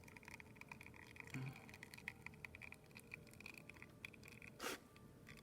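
Faint, steady crackle of an espresso shot flowing from a La Pavoni lever machine's portafilter into the cup, with a short louder rustle about four and a half seconds in.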